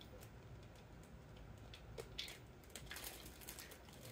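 Near silence broken by a few faint clicks and short rustles of small items being handled.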